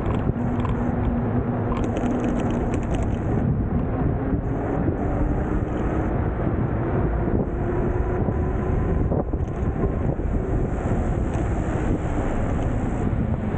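Wind rushing over the microphone and road noise while riding an electric bike, with a faint tone rising slowly in pitch for several seconds in the middle.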